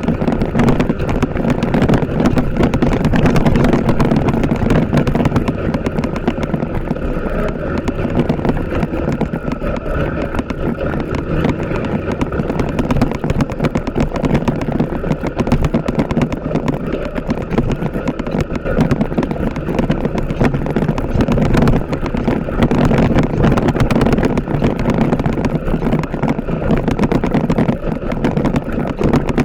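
TVS Apache RTR 160 4V motorcycle being ridden, its single-cylinder four-stroke engine running steadily.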